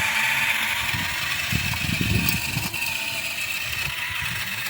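Small garden tiller running steadily, its tines churning and loosening soil and grass roots, with an uneven low rumble that swells about halfway through as it digs in.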